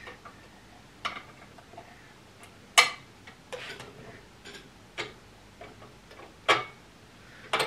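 Gear train of a reproduction Antikythera mechanism being cranked by hand: scattered clicks and knocks, a second or so apart and irregular, the loudest about three seconds in. The mechanism runs poorly, its sun and moon dials not turning properly.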